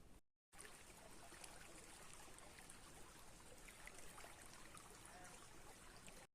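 Faint, steady rush of flowing water from a small stream, with a few small ticks. It cuts out for an instant just after the start and again at the end.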